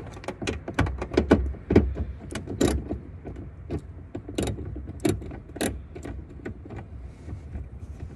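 Irregular sharp clicks and knocks, many in the first few seconds and sparser after: a hand tool working against metal and plastic trim inside a car trunk while a hidden taillight mounting screw is taken out.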